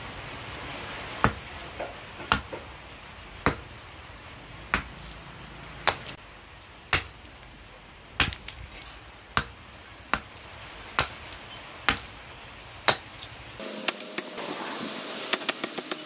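A block of rosewood being chopped by hand with a blade: sharp, single chopping strikes about once a second, then, after a cut in the sound near the end, quicker and lighter strikes several times a second.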